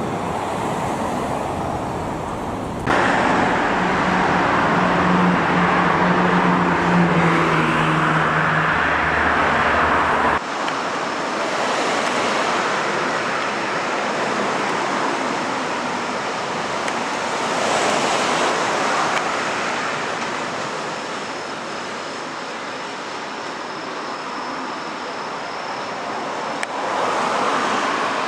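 Road traffic going past: a steady rush of tyres and wind, with vehicles swelling past every few seconds. A vehicle's engine hum sits under it from about four to ten seconds in, and the sound changes suddenly about three and ten seconds in.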